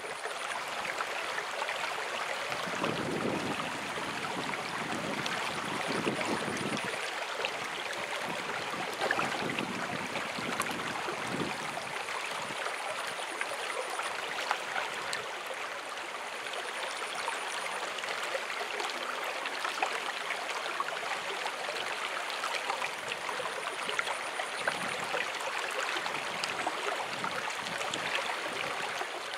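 Shallow stream flowing over a sandy, rocky bed: a steady wash of running water, with some lower rumbling a few seconds in.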